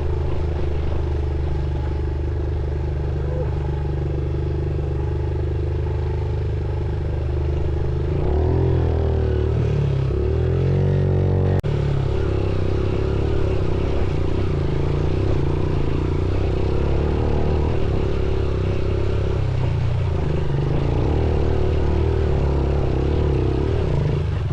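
Motorcycle engine running steadily while riding. Its pitch swings up and down for a few seconds about a third of the way in, with a brief break just before the middle, then it settles back into steady running.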